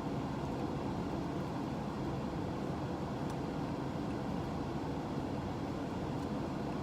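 Steady, even rushing hum like a fan or blower running, with a couple of faint light ticks.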